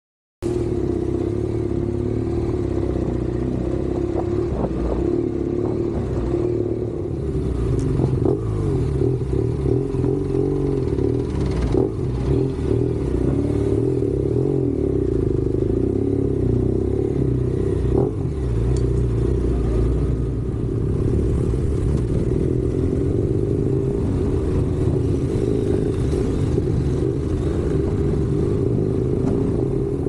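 Motorcycle engine running steadily under way, with a few sharp knocks and rattles along the rough track. It cuts in abruptly just after the start.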